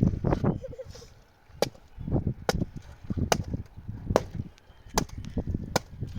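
A series of sharp strikes, about one a second, six in all, with duller thuds between them.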